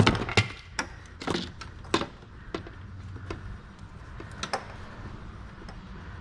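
Plastic clicks and rattles from the side mirror's wiring connector being unlatched and pulled apart inside the door. Several sharp clicks come in the first two seconds, then a few scattered ones, over a low steady hum.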